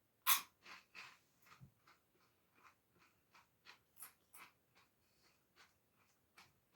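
A crunchy pea-protein puff snack bitten into with one sharp crunch, then chewed with a run of smaller crisp crunches about two or three a second.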